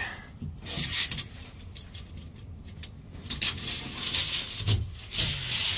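Cloth privacy curtains being drawn back by hand, rustling and swishing in several short bursts.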